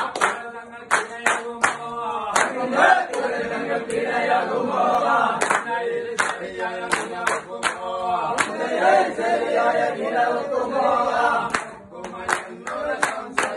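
A group of men singing together and clapping their hands to the song's rhythm.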